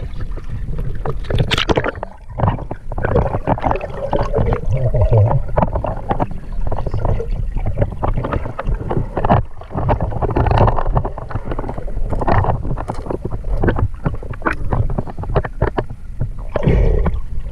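Sea water splashing and gurgling around a camera dipped in and out of the water at a boat's side, with irregular knocks and a steady low rumble.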